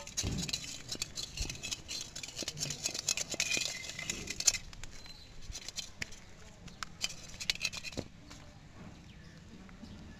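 Rustling of grass and dry leaves with quick taps and clicks as hands and a perforated aluminium strainer are handled, dense through the first half and sparse after that.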